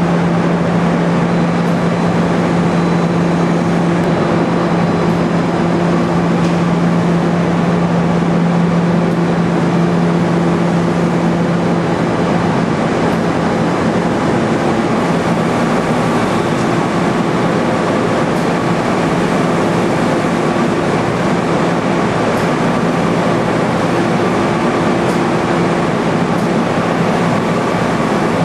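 Steady machinery noise on a drum-filling line: an even rush with a low hum under it and no sudden sounds.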